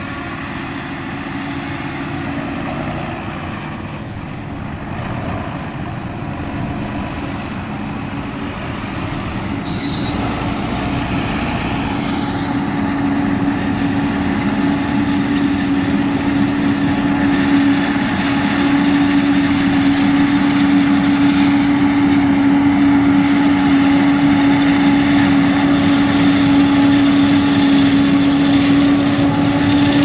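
John Deere 7750i self-propelled forage harvester chopping maize, with John Deere tractor engines pulling silage trailers alongside. The machinery runs steadily and grows louder as the harvester comes closer, with a strong droning hum building from about halfway.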